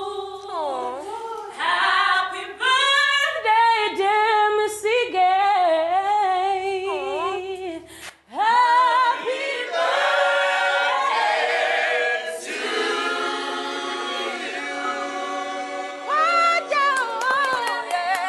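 A group of young men and women singing together unaccompanied, with wide vibrato on held notes. The singing breaks off briefly about eight seconds in, then resumes with more voices at once.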